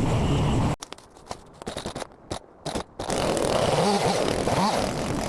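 Chinese excavator's engine running. It cuts off abruptly after under a second, with scattered clicks and knocks in the quieter gap. It comes back loud about three seconds in, with a pitch that rises and falls twice.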